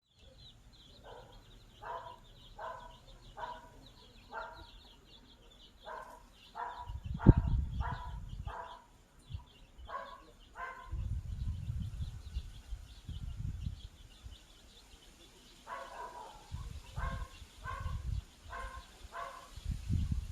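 Runs of short repeated animal calls, about one and a half a second, with quick high chirping going on behind. Low rumbling comes and goes in between.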